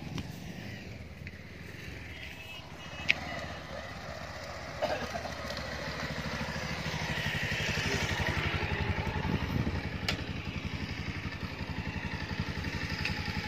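Motorcycle engine running with a steady rapid low pulse, growing louder over several seconds as the bike rides up. A single sharp click about three seconds in.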